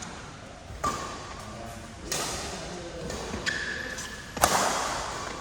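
Badminton rally: rackets striking the shuttlecock in several sharp hits a second or two apart, the loudest about four and a half seconds in, echoing in a large hall. There is a short high squeak shortly before the loudest hit.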